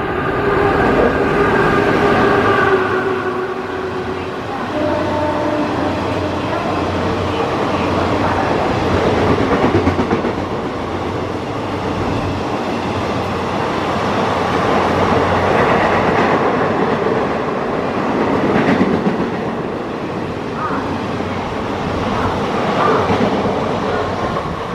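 WAP-4-hauled ICF express train passing at speed, its coaches rattling and clattering over the rail joints without a break. A locomotive horn sounds during the first three seconds.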